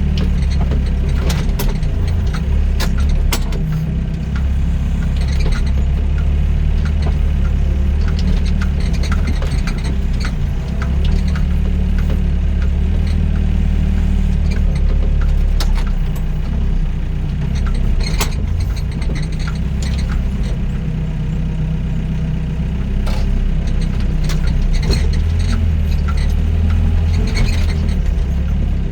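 Doosan DX55 mini excavator's diesel engine running steadily under working load, with scattered short clanks and knocks from the machine as it spreads soil.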